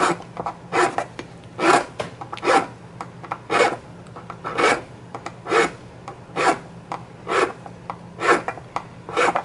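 Small flat hand file rasping across the black mouthpiece of a Medico Guardsman tobacco pipe, in short strokes about one a second, flattening out tooth chatter on the bite. The stem files unlike vulcanite, and the restorer suspects it is some sort of plastic.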